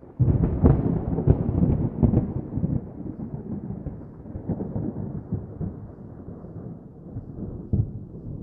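Rolling thunder: a sudden loud crack at the start, then a low crackling rumble that slowly fades away.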